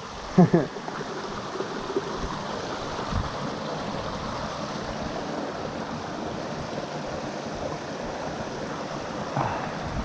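A small rocky stream rushing and splashing over boulders, a steady even water noise. A brief voice sound comes about half a second in.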